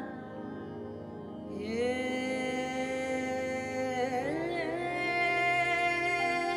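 Slow Indian vocal music: a singer holds long, wavering notes over a steady drone, moving to a new note about four seconds in.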